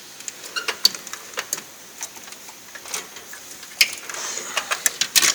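Steel tool chest drawers being shut and pulled open, giving a string of light metal clicks and rattles from the slides and the tools inside, with a louder clatter near the end.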